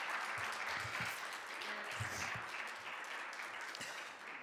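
Congregation applauding, fading gradually toward the end.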